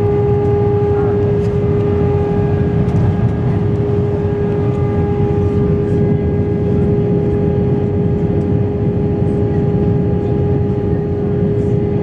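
Cabin noise of a British Airways Airbus A320 in flight: a steady roar of engines and airflow, with a strong steady hum-like tone and fainter higher tones above it.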